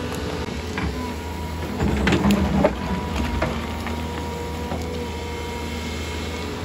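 Doosan excavator's engine running steadily, with scattered short knocks and clacks over it, a cluster of them about two seconds in.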